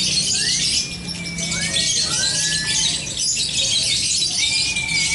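Lovebirds chattering and trilling in a dense, high-pitched chorus. Four short whistles rise and then hold steady over it: one near the start, two close together around the middle, and one near the end.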